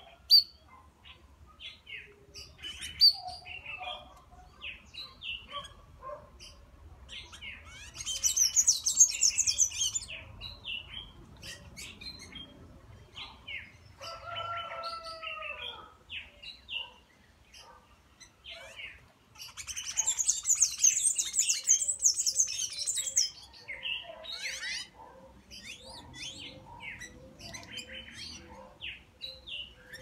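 Several wild songbirds chirping and calling, with two bursts of rapid, high-pitched twittering song, one about a third of the way in and one around two-thirds of the way in. A lower, curving call sounds about halfway through.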